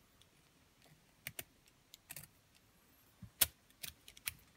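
Small, sharp metallic clicks and taps, irregularly spaced, from a small chrome metal gadget being handled and twisted in the fingers, with the loudest click about three and a half seconds in.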